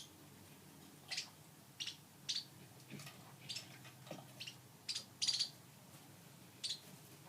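Pet lovebirds chirping: short, sharp high chirps, about eight of them with irregular gaps, over a faint low hum.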